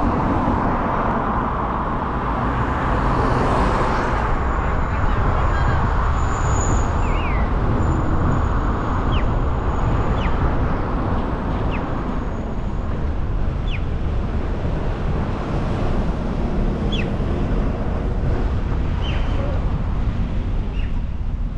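A car driving along a road: steady road and wind rumble, with a few short high chirps now and then.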